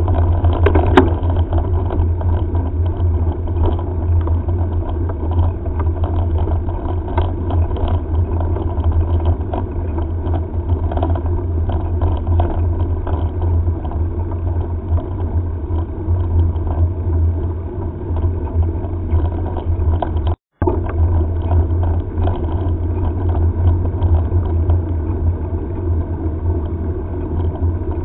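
Wind buffeting a helmet-mounted camera's microphone as a mountain bike rolls along an asphalt road: a steady low rumble with tyre hiss and small rattles and knocks. The sound cuts out for a split moment about two-thirds of the way through.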